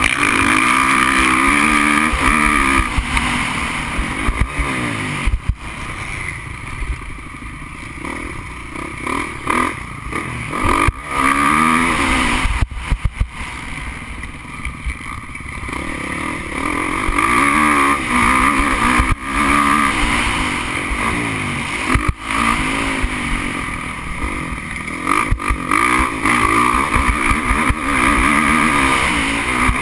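Motocross bike engine heard up close from the bike itself, revving hard and easing off again and again so that its pitch keeps rising and falling. Its loudness dips briefly several times, with a longer quieter stretch about halfway through.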